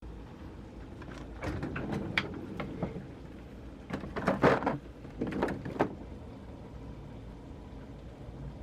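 Handling clatter: sharp knocks and scrapes in three short bursts, over a low steady hum.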